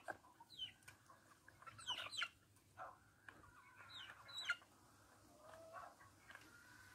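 Young chickens calling faintly: a handful of short, high peeps that fall in pitch, scattered a second or so apart.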